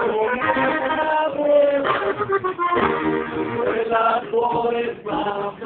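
Live band music: a button accordion playing a melody of short, changing notes over an upright bass.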